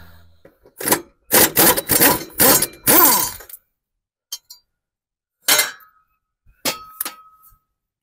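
Metal tools and parts clanking and rattling: a run of loud clattering knocks in the first few seconds, then a few single clinks, one of them ringing briefly near the end.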